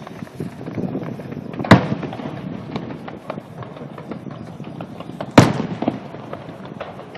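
Aerial fireworks going off: two loud sharp booms, about a second and a half in and again about five seconds in, amid a steady run of smaller crackling pops.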